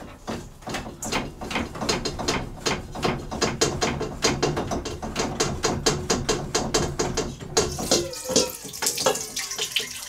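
Rapid, steady ratchet-like clicking, about six clicks a second, as the tankless water heater's cold-side stainless steel flex line fitting is loosened. The clicking stops at about eight seconds, and a little water trickles out of the disconnected line.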